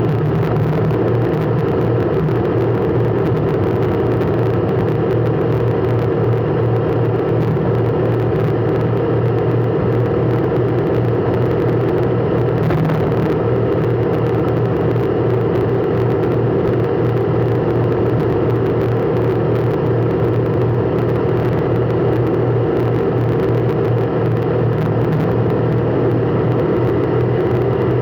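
Steady drone of a car's engine and road noise, unchanging throughout.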